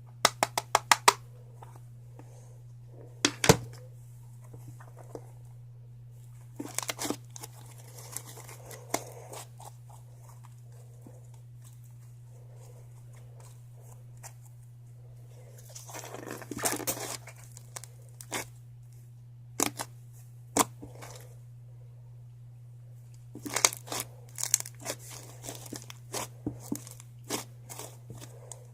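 Slime being squished and worked by hand, giving bursts of sharp clicking and crackling pops, including a quick run of clicks about a second in and a busy cluster near the end. A steady low hum runs underneath.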